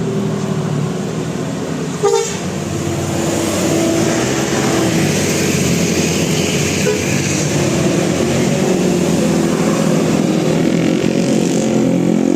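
Telolet basuri musical vehicle horn playing a tune, its notes stepping from pitch to pitch over traffic noise. A sharp click comes about two seconds in, and the horn is louder after it.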